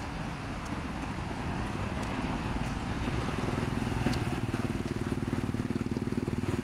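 Road traffic, with a motor vehicle's engine running close by and growing louder from about halfway through.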